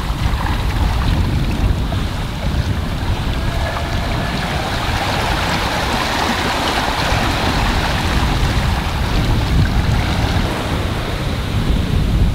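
Wind rumbling on the microphone over the steady rush of waves and water along a sailing yacht's hull as it sails.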